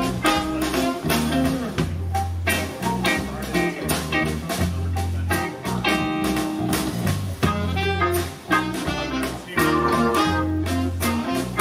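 Live band playing a bluesy, jazzy groove with electric guitar and saxophone over a heavy bass line and drums during a sound check, heard through the PA. It is picked up by a camera's built-in mic and sounds compressed.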